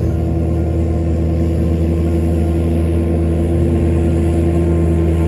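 Tractor engine running steadily as it pulls a plough, holding an even pitch.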